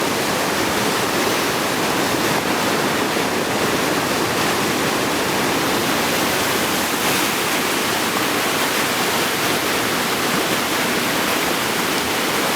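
Whitewater river rapids rushing steadily, a loud, even roar of water.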